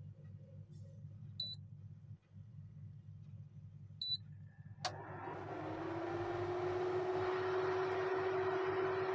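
Geepas electric cooktop's control panel beeps twice as it is switched on. A click follows about five seconds in, and its cooling fan starts up, rising briefly in pitch and then running as a steady whir with a tone.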